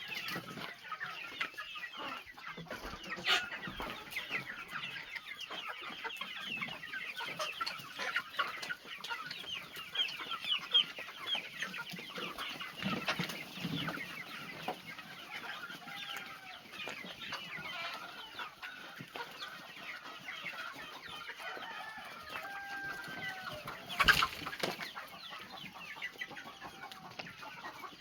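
A flock of young chickens, about two and a half months old, clucking and cheeping continuously in many short high-pitched calls, with a few longer drawn-out calls. There are a couple of sharp knocks, the loudest near the end.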